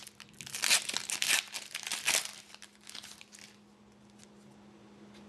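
Foil wrapper of a hockey card pack crinkling and tearing as it is opened by hand for about two and a half seconds, then a few light rustles before it goes quiet. A faint steady hum runs underneath.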